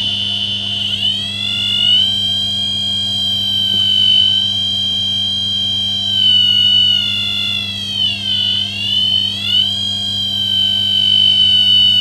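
Electromagnetic field detector's built-in buzzer sounding a continuous high tone whose pitch wavers, dipping and coming back up about eight seconds in. It is picking up a residual field at the open microwave oven, which the owner guesses comes from the oven light. A steady low hum runs underneath.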